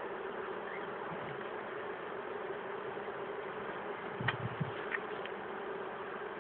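A large cluster of honey bees buzzing in a steady hum, with a few short knocks a little after four seconds in.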